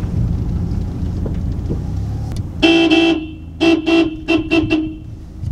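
Car engine rumbling low as heard from inside the cabin, then the car's horn: one long blast about two and a half seconds in, followed by about five quick short honks.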